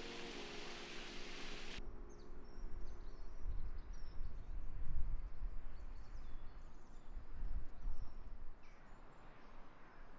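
Outdoor ambience: small birds chirping in short, high notes over an uneven low rumble. A brief rush of hiss fills the first two seconds.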